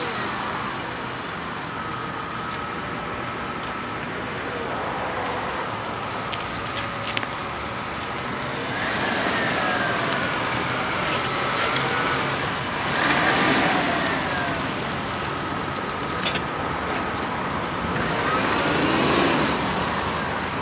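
BMW E46 320i's straight-six petrol engine running as the car drives slowly past at close range, with tyre noise. The sound swells and falls a few times as the car comes near, loudest in the second half.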